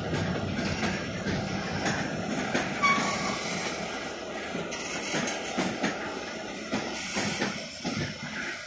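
Freight train cars, covered hoppers and a tank car, rolling past on the rails: a steady rumble with irregular clacks of the wheels over rail joints.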